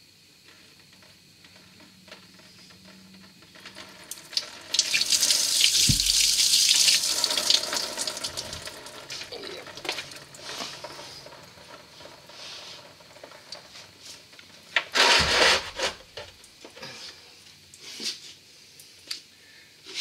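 Antifreeze gushing out of a radiator drain and splashing onto the floor and into a drain pan. The gush is loudest for a few seconds about five seconds in, then eases off, with another brief loud burst about three-quarters of the way through.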